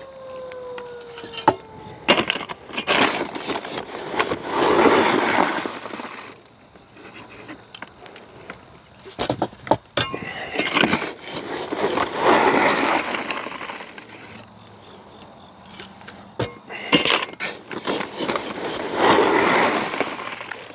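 A metal hand scoop crunching and clinking into pulverized lump charcoal, then the charcoal poured off the scoop into a steel compost tumbler with a rushing slide. The scoop-and-pour cycle comes about three times.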